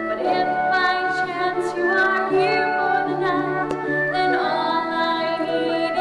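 A young woman singing a solo stage-musical song over instrumental accompaniment, holding long notes with slides between them.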